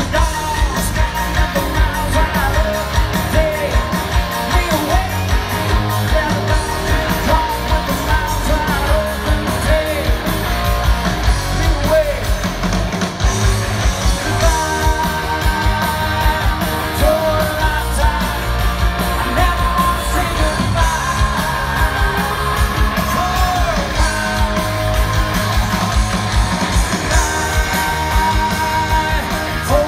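Live rock band playing loud, with electric guitars, drums and keyboards under a singer's vocal, heard from the crowd.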